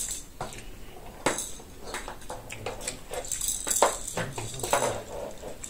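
Eating sounds: fingers working rice and stew on china plates, with scattered clicks and light clinks, and chewing and lip smacks.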